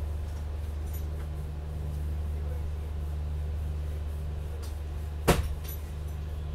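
Steady low hum inside an air-conditioned train coach, with one sharp knock a little after five seconds in and a few faint clicks.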